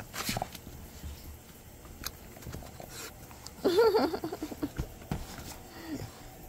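Boston terriers rummaging at a woven fabric laundry basket: scattered light taps and scratches of paws and noses against the basket. A short wavering vocal sound a little past halfway is the loudest thing, with a brief falling tone near the end.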